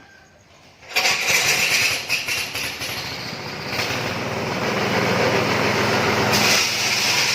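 Multifunction grass chopper and pellet mill machine starting up suddenly about a second in, then running with loud, steady machine noise that grows a little louder toward the end.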